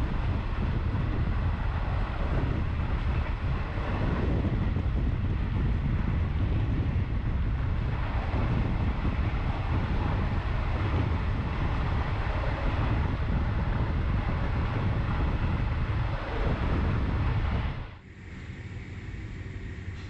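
Passenger train running: a steady low rumble with wind buffeting the microphone. About eighteen seconds in it cuts off abruptly to a quieter, steady hum.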